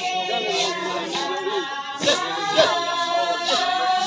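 Several voices singing together, with long held notes.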